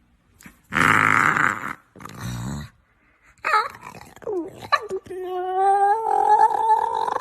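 A dog vocalizing: a rough growl-like burst, then a falling whine, then a long held howl starting about five seconds in.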